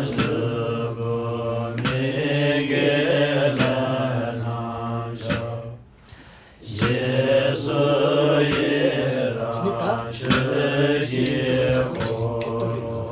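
Buddhist mantra chanting over a steady low drone, with a sharp percussive strike about every 1.7 seconds. The chant breaks off briefly about halfway, then resumes.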